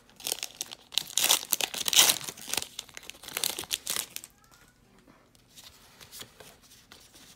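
Foil wrapper of a Pokémon trading-card booster pack crinkling loudly as the cards are slid out of the pre-cut pack, for about four seconds. After that the sound drops to a few soft clicks of cards being handled.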